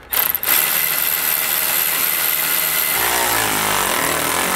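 Cordless electric ratchet running continuously, driving a self-tapping screw through the lower air spring bracket into the steel spring perch. A lower, wavering tone joins about three seconds in as the screw bites.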